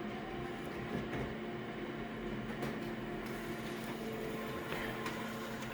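Konica Minolta photocopier running with a steady hum and a few faint clicks.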